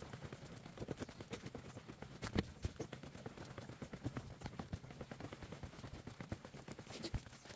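Hikers' footsteps going down wooden stairs: an irregular run of light knocks of boots on boards, several a second, with one firmer step about two seconds in.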